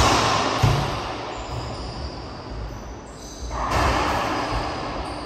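Racquetball play in an echoing court: two loud noisy bursts about three and a half seconds apart, each dying away slowly, with a sharp knock just after the first.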